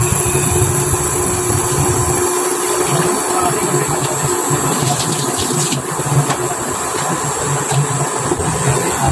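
Steady hiss with a low rumble underneath from a pan heating on the stovetop.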